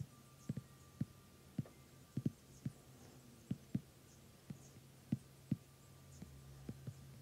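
Fingertip taps on an iPad's glass touchscreen: short, dull, irregular thumps, one or two a second, over a low steady hum.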